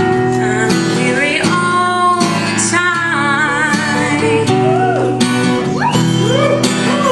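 A live band plays an upbeat country song on acoustic and electric guitar, strummed chords under a woman singing the lead with a wavering held note.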